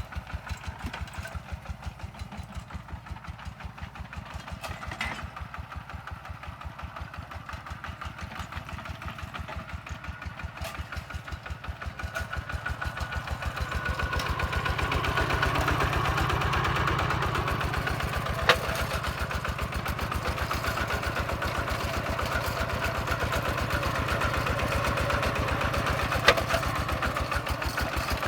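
Bulldozer's diesel engine running with an even, rhythmic chug. It grows louder about halfway through, as the machine works harder. Two sharp knocks come near the end.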